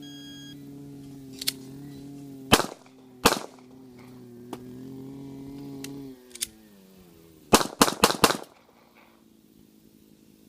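A shot-timer beep, then two pistol shots from a Glock 42 .380 about two-thirds of a second apart. After a pause of about four seconds, four quicker shots follow, the F.A.S.T. drill's two-then-four string with a reload between. A steady engine-like hum underneath winds down and stops about six seconds in.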